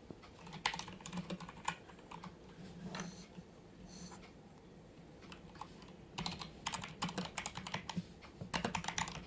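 Typing on a Keychron K2 mechanical keyboard with Gateron Brown switches: a few scattered keystrokes, a pause broken by two brief high-pitched blips, then a quick burst of typing over the last few seconds.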